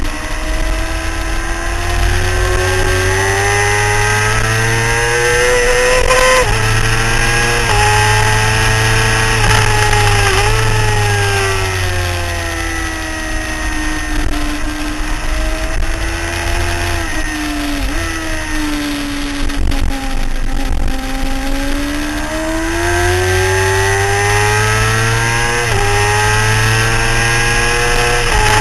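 Sport motorcycle engine at racing speed heard from on board, rising in pitch under hard acceleration with sharp drops at each upshift, winding down through the middle as the bike slows for corners, then pulling hard again with another upshift near the end. Heavy wind rushing over the microphone underneath.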